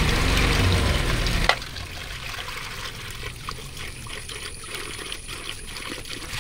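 Water pouring steadily, then cut off suddenly with a sharp knock about one and a half seconds in. After that come only faint drips and light clicks.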